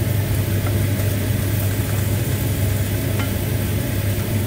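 Diced onions sizzling softly in a stainless steel pan as they are stirred with a wooden spatula, over a steady low kitchen hum that is the loudest sound.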